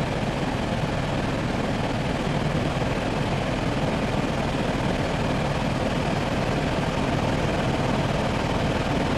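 Helicopter in flight heard from inside the cabin: a steady engine and rotor noise.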